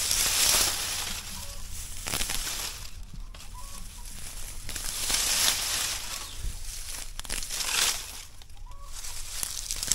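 Dry grass and mulch rustling and crackling in several bursts as a hand pushes through it to the soil at the base of a young mandarin tree. A few faint, short bird calls sound in the background.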